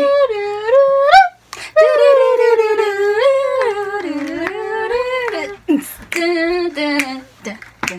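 A woman singing a wordless tune in long held notes that slide up and down, in three drawn-out phrases with short breaks between them.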